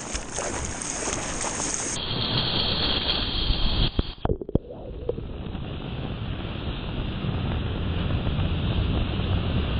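Wind buffeting an action camera's microphone over the rush and splash of sea water around a surfboard. About four seconds in there are a few sharp knocks and a brief muffled dip as water washes over the camera, then the steady rush of surf.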